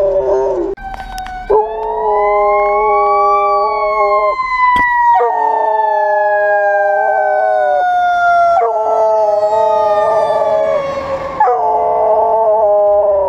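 A Dutch Shepherd howling along with a passing fire engine's siren, in long held calls that break off and start again every few seconds. The siren rises in pitch over the first few seconds, then falls slowly through the rest.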